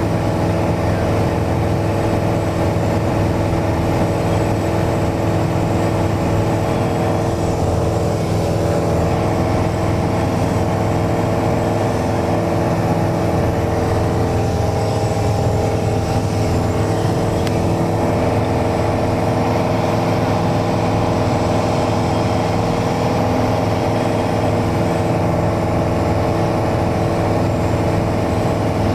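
Mooney single-engine light aircraft's piston engine and propeller droning steadily in level flight, heard from inside the cabin.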